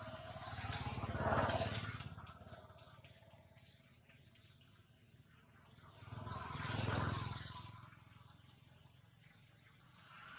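Outdoor ambience with scattered short high chirps. Two swells of rushing noise rise and fade, one about a second in and one about seven seconds in.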